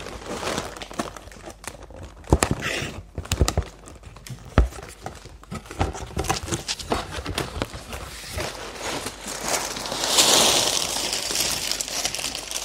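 Sealed plastic bags of Lego bricks crinkling and rattling as they are tipped out of a cardboard box and handled on a table, with scattered sharp knocks and a longer rustle about ten seconds in.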